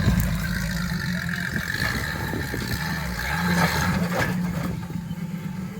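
An off-road vehicle's engine running as it works up a rock climb, with a few knocks; the sound drops off about five seconds in.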